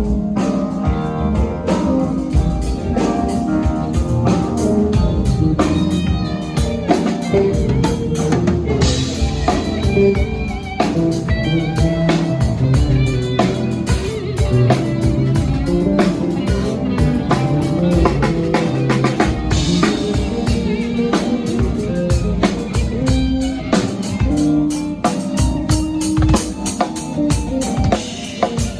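Rock band playing live on stage during a sound check: guitar over a drum kit keeping a steady beat.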